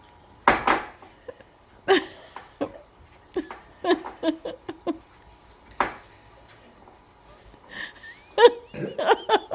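A string of short, separate throat and mouth noises, hiccup-like and stifled laughs, with quiet gaps between them, from people holding in burps after chugging soda. A cluster of these sounds comes near the end, with a brief high squeak.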